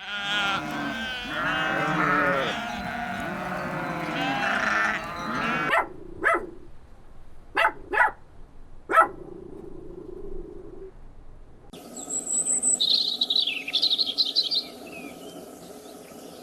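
Many animals bleating at once in overlapping calls, followed by a few single short calls. Later comes a stretch of high-pitched chirping over a faint steady background.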